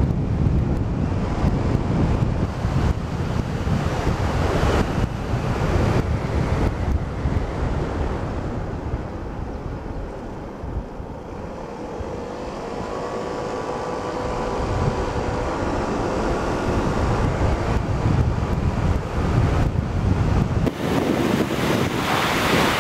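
Wind buffeting the microphone on a moving motor scooter, with road and engine rumble underneath. The wind eases as the scooter slows about ten seconds in, then a faint rising engine whine comes through as it picks up speed again and the wind builds.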